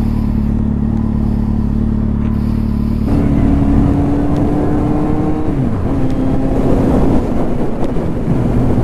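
Sport motorcycle engine idling steadily. From about three seconds in it is running on the road at a steady speed at a higher pitch, with rushing wind and road noise. The pitch dips once about halfway through.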